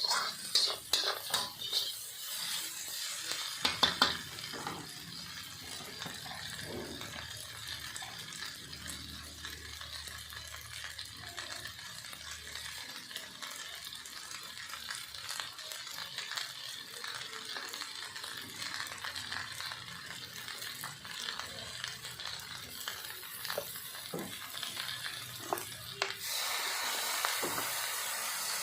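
Chicken chow mein stir-frying in a pan: a steady sizzle, with utensil clinks and scrapes against the pan in the first few seconds. A louder hiss sets in near the end.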